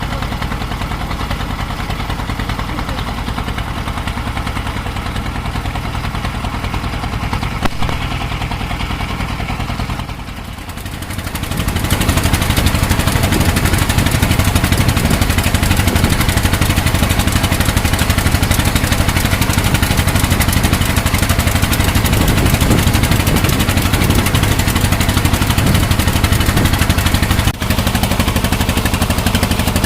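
Boat engine running steadily. It eases off briefly about ten seconds in, then runs louder from about twelve seconds on.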